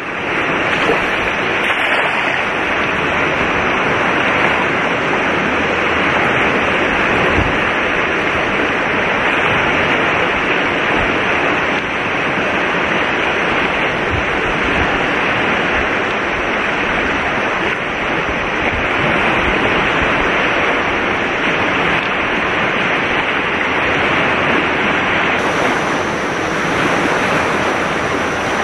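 Steady rushing of a fast-flowing river swollen by flood water.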